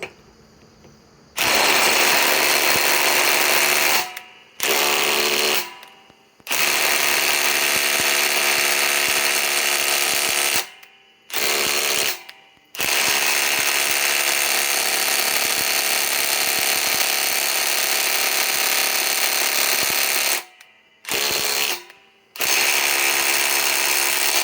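Ryobi PSBIW25 compact cordless impact wrench hammering on a large nut in about seven bursts of one to eight seconds, with short pauses as the trigger is released. The nut does not break loose.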